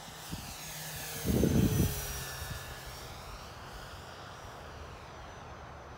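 Electric motor and propeller of an E-flite Air Tractor 1.5m RC plane whining in a low flyby, the pitch dropping as it passes about two seconds in. A gust of wind buffets the microphone with a short low rumble, the loudest sound, about a second and a half in.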